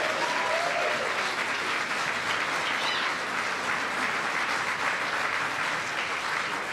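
Large audience applauding steadily, with a few voices calling out about a second in.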